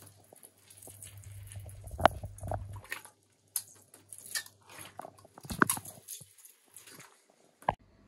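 Plastic squeeze bottle being handled and squeezed as hydrogen peroxide is squirted over a paper-wrapped skull: irregular crackles and sharp clicks, with a low hum during the first three seconds.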